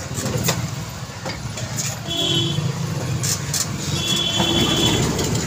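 Rumble and rattle of a rickshaw ride on a street, with short vehicle horn toots about two seconds in and again about four seconds in.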